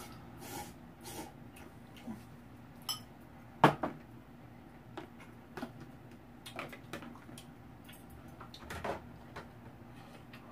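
Eating utensils clinking and knocking against a bowl of noodle soup in scattered, irregular taps, with one sharper knock about three and a half seconds in.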